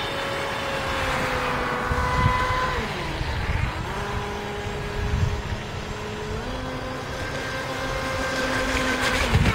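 Brushless electric outrunner motor of a radio-controlled jet ski running on 4S LiPo, a steady high whine that drops in pitch about three seconds in as the throttle eases and climbs back up about six and a half seconds in, with occasional low rumbles.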